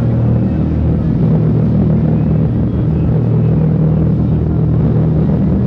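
Steady loud low rumble with a droning hum, as of a motor running.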